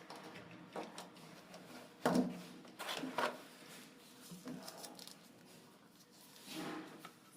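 Irregular knocks and scrapes of parts being handled during installation work, the loudest a sharp knock about two seconds in, with more around three seconds and near the end.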